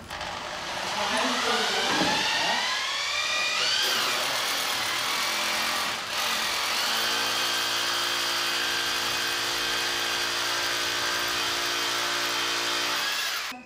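A motor rising in pitch over the first few seconds, then running at a steady pitch, cutting off abruptly near the end.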